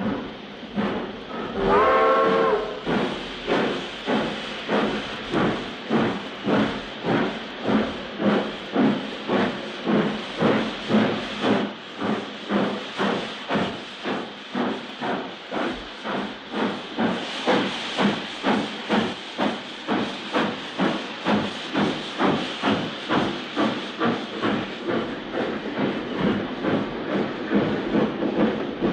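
Steam locomotive pulling away: a short whistle blast about two seconds in, then steady exhaust chuffs, nearly two a second, over a hiss of steam. The chuffs soften toward the end.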